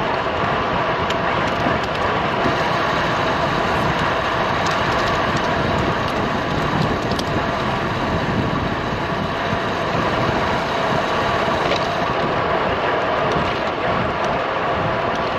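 Steady wind rush over the microphone mixed with tyre and road noise from a road bike riding at speed on 28 mm tubeless tyres.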